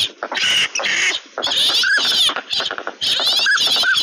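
Recorded chorus of ducks calling, pintails among them: short clear whistles mixed with rapid chattering quacks, the same phrase repeating about every two seconds.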